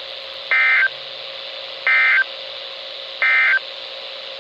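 Emergency Alert System end-of-message (EOM) signal: three short bursts of buzzy SAME digital data tones, each about a third of a second long and a little over a second apart, over a steady hiss of radio static. The bursts mark the end of the broadcast flash flood warning.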